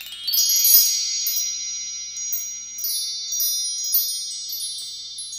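Chime sound effect: a cluster of high, bell-like tones ringing together, with new tinkling strikes every second or so, the loudest near the start, and slowly fading.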